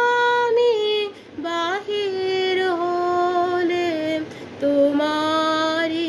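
A woman singing a Rabindra Sangeet solo with no accompaniment heard, holding long drawn-out notes with small ornamental turns. The line breaks twice briefly for breath.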